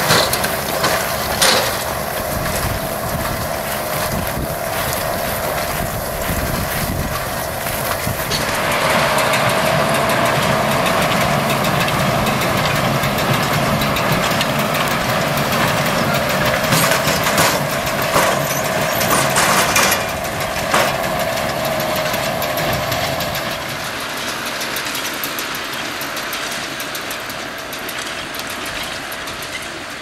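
John Deere 6110 tractor running with an International Harvester 440 baler and McConnel bale packer working behind it, a steady machine hum with occasional clanks from the baling and packing mechanism. It grows louder about a third of the way in and eases off in the last quarter.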